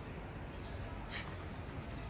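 City park ambience: a steady low hum of distant traffic, with one brief high-pitched sound just over a second in.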